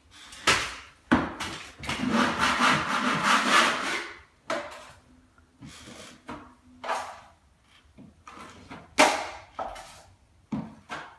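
Drywall knife scraping joint compound across the wall in strokes, one long stroke near the start, with sharp clacks of the blade, the loudest about three-quarters of the way through: skim-coating for a level 5 finish.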